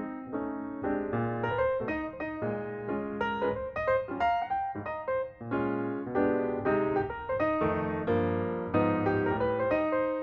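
Background piano music: a steady run of struck notes with chords, no voice.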